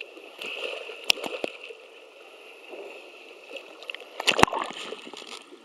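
Surf water sloshing and splashing around a small kayak being dragged through the waves. There are two sharp knocks, one about a second in and a louder one about four and a half seconds in.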